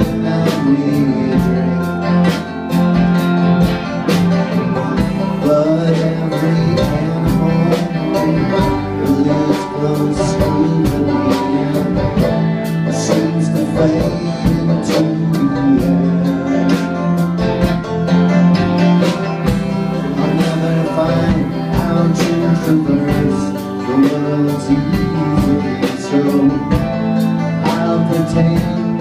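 Live band playing an instrumental stretch: five-string banjo and electric guitar over bass and a steady drum beat.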